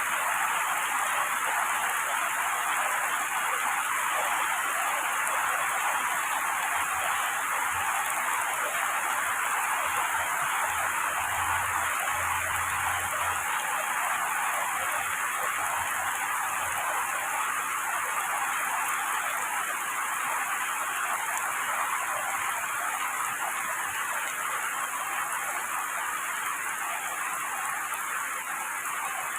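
Heavy rain pouring steadily onto tree foliage, an even hiss without a break.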